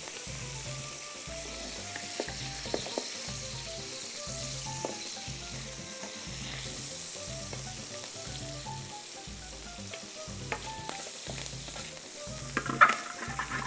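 Pieces of leather-skinned fish frying in hot oil in a pan, a steady sizzle, with a few sharp taps of a utensil against the pan, the loudest near the end.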